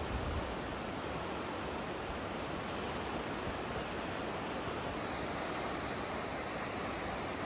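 Steady rushing of the Indus River swollen in flood, its fast water running high along the banks.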